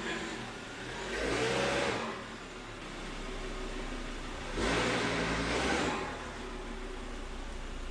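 Car engine revved twice, each rev lasting about a second, with a steadier running sound between them.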